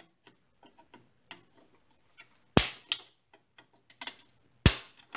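Flush cutters snipping plastic ridges off a radio's plastic housing: two loud sharp snaps about two seconds apart, with light clicks and rattles of plastic being handled in between.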